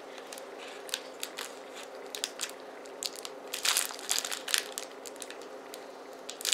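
Wrapped sleeve of cheddar crackers being slowly opened by hand. Scattered small crinkles and crackles of the wrapper come through, with a louder, denser stretch about three and a half to five seconds in.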